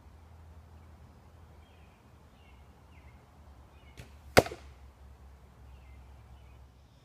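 The faint snap of a Browning Explorer vintage recurve bow being shot far off, then about half a second later a single sharp, loud smack as the arrow strikes the 3D archery target close by. Birds chirp faintly.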